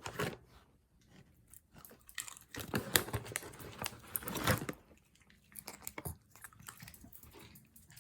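Dog chewing and crunching a treat, in irregular bites that are busiest a couple of seconds in and then taper off.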